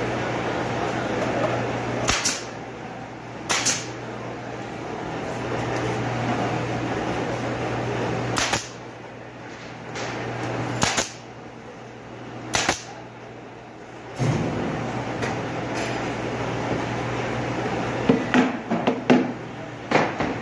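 Pneumatic brad nailer driving nails into MDF cabinet panels: five sharp shots a few seconds apart, then a quick run of smaller knocks near the end, over a steady low hum.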